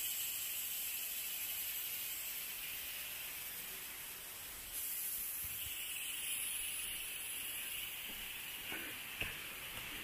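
A steady, high-pitched drone of forest insects that gets a little louder about halfway through, with two faint knocks near the end.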